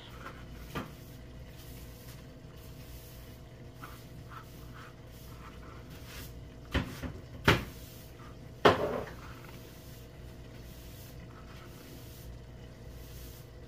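A few sharp kitchen knocks and clunks, three of them close together in the middle, the last with a short ring, over a steady low electrical hum.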